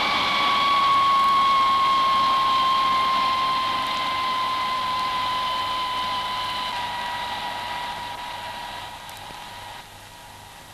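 Jet engine whine over a rushing noise, slowly falling in pitch and fading away, with a sharper drop near the end.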